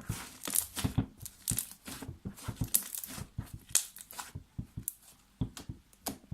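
Slime being squeezed and worked by hand, giving irregular sticky pops and crackles, several a second.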